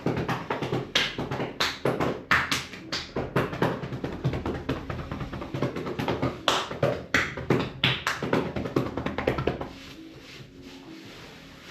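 Massage percussion: hands tapping and slapping quickly on a person's body, several strikes a second with a few harder slaps among them, stopping near the end.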